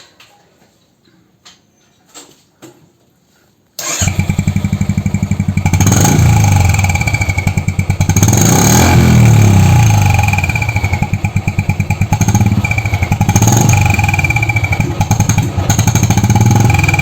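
Royal Enfield Bullet single-cylinder engine starting about four seconds in after a few faint clicks, then running and revved up and down several times. A thin whistle from the turbo whistle fitted to the bike sounds above the engine, wavering with the revs.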